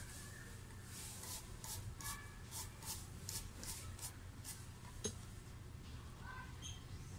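Faint handling of a small car tachometer gauge assembly: a run of about ten quick scratchy rubbing strokes, roughly three a second, then a single click about five seconds in.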